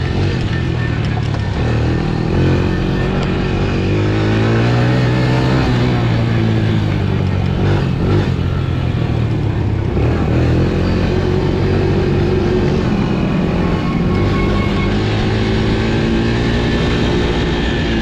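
Honda TRX90 youth ATV's small four-stroke single-cylinder engine running under way, heard from the rider's helmet. Its pitch climbs over a few seconds, drops back about eight seconds in, then climbs again as the throttle is worked.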